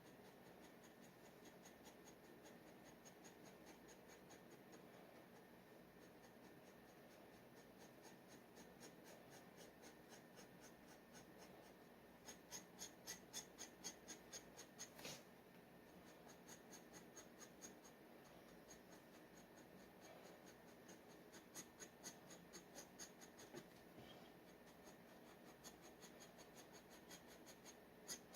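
G nib dip pen scratching on paper in short, quick strokes, faint throughout. The strokes come in runs that grow louder and faster about halfway through and again near the end, with one sharper tick in the middle.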